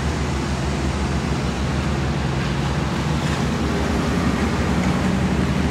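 Steady outdoor rushing noise with a heavy low rumble and a hiss on top, unchanging and without distinct events.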